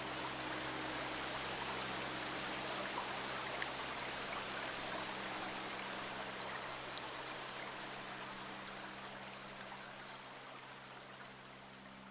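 Steady rush of flowing water, like a woodland stream, over a low steady hum of a few tones, fading out gradually.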